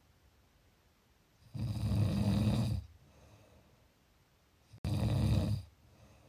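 A sleeper snoring: two snores, the first about a second and a half in and lasting over a second, the second shorter near the end.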